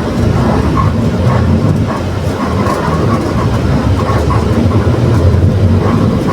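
Mercedes-Benz OF 1721 BlueTec 6 bus driving along: its diesel engine runs with a steady low drone while the differential growls.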